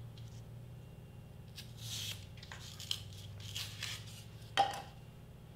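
Craft knife blade cutting and scraping through a sheet of board in a few short scratchy strokes, with a sharp click about four and a half seconds in. A low steady hum runs underneath.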